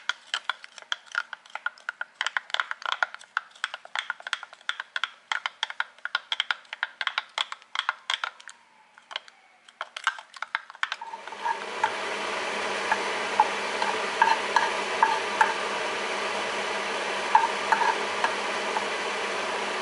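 A utensil clinks rapidly against a glass jar as a cream and curry sauce is stirred until smooth. About eleven seconds in, butter starts sizzling steadily in a nonstick frying pan, with scattered crackles and light spatula ticks.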